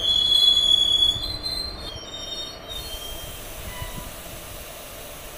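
Passenger train's steel wheels squealing against the rails as the coach rolls slowly out along the platform. The high-pitched squeal fades and stops about two and a half seconds in, leaving a low running rumble.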